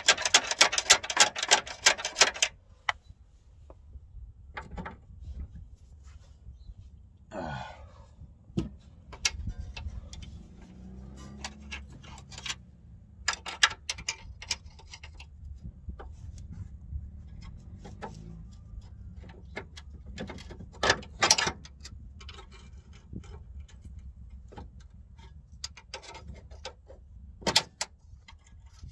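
Hand tools working on a car's front suspension bolts: a ratchet spanner clicks rapidly in bursts, with scattered metal clinks and knocks between. A steady low rumble runs underneath.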